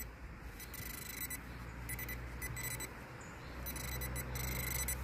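Handheld metal-detecting pinpointer probe sounding its high electronic alert tone in irregular on-off bursts as it is swept over loose soil, signalling a metal target close to its tip.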